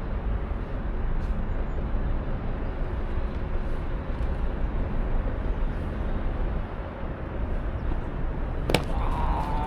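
Steady outdoor rumble, heaviest in the lows, with a single sharp crack near the end.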